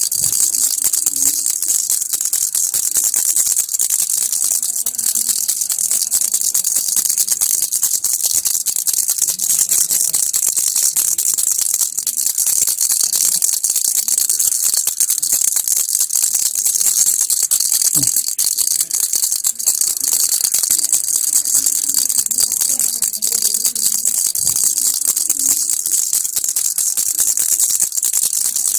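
Baby rattle shaken continuously: a dense, unbroken rattling, mostly high-pitched.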